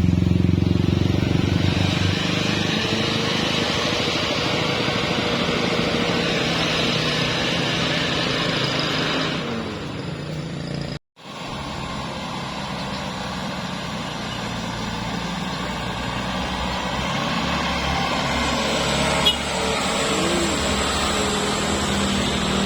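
Road traffic: motorcycle and vehicle engines running as they pass on a climbing bend. The sound drops out completely for a moment about eleven seconds in, where the recording cuts, and a short sharp knock comes about three seconds before the end.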